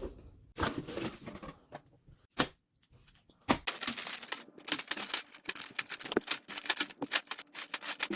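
Plastic building-brick set being unboxed: a few separate sharp clicks of packaging and pieces, then from about three and a half seconds in a quick, continuous rattle and clicking of plastic bricks and bags being handled.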